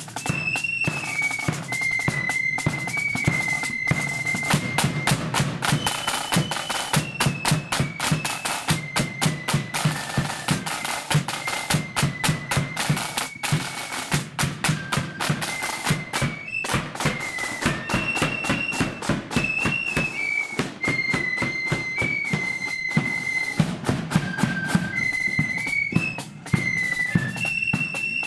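Marching flute band playing a march: massed side drums beating rapid strokes and rolls, a bass drum keeping the beat, and flutes carrying a high melody over them.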